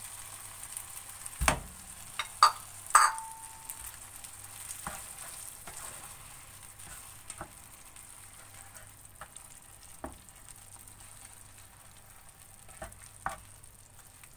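Creamy sauce sizzling in a non-stick frying pan as a spatula stirs and scrapes through it. A few sharp knocks and a short clink come in the first three seconds as the milk bowl is emptied against the pan. The sizzle grows quieter toward the end.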